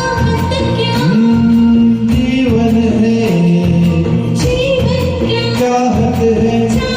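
A Hindi film-song duet sung over a karaoke backing track with a steady percussion beat, the voice holding long notes.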